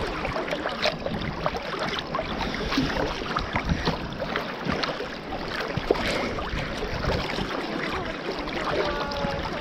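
Sea water sloshing and splashing right at the microphone of a camera held at the surface by a swimmer. The swimming strokes and small waves make many short splashes over a steady wash of water.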